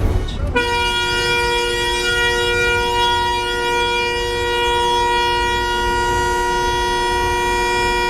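Car horn held down in one long steady blast of about seven and a half seconds, two pitches sounding together, starting about half a second in: a rage honk at a driver holding up the line at a right-turn-only light.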